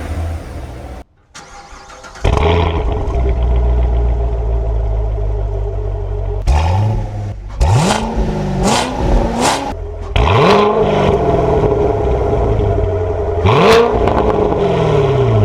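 A 2017 Corvette Stingray's 6.2L LT1 V8 through a Borla ATAK cat-back exhaust, idling steadily. It is then blipped about six times in the second half, each rev rising and falling back within about a second, three of them in quick succession. Near the start the sound drops out briefly before the idle comes in loud.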